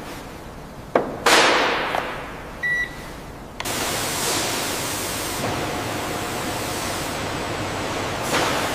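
Factory equipment sounds: a click, then a sharp hiss that fades over about half a second, a short high beep, and from about three and a half seconds in a steady loud hiss that swells briefly near the end.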